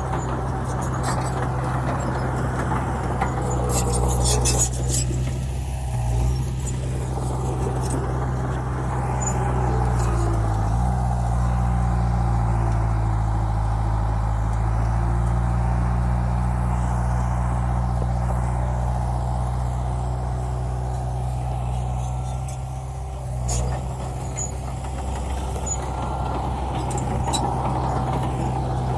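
Heavy diesel engine of an earthmoving truck running steadily, its engine speed shifting about ten seconds in, with a few short hisses or clicks about four seconds in and again near the end.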